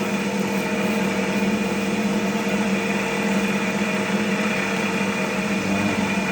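Large cast cotton candy machine running with its spinner head turning, a steady hum and whir that holds at one pitch.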